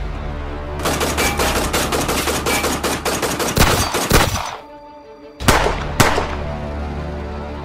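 Rapid gunfire in a long burst of many shots from about a second in, over background music with a steady bass line. After a brief lull, two loud single shots about half a second apart.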